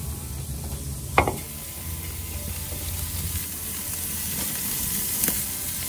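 Raw marinated flank steak sizzling on hot grill grates, a steady hiss. A sharp click sounds about a second in, and a fainter one near the end.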